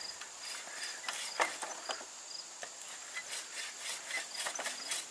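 Insects chirping: a steady high buzz with short chirps repeating a few times a second, over scattered light clicks and snaps.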